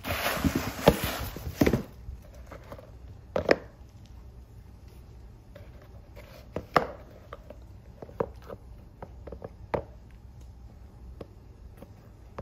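Paper wrapping rustling and crinkling loudly for about two seconds as it is pulled out of a cardboard shoe box. After that come a sharp double knock and scattered light taps and clicks as leather sneakers are handled and set down.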